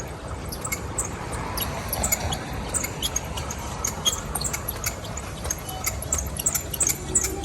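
A bicycle being ridden in the rain, giving many short high squeaks and clicks over a low steady rumble; the squeaks come thicker toward the end.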